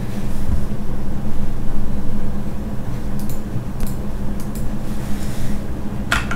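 Steady low mechanical hum, with a few faint clicks from about three seconds in, then louder keystrokes on a GK61 mechanical keyboard near the end as typing begins.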